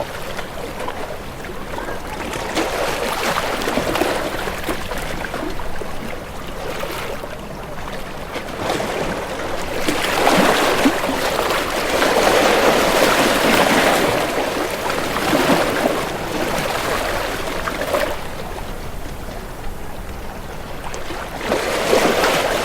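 Moving water rushing and splashing, rising and falling in loudness and swelling louder about halfway through.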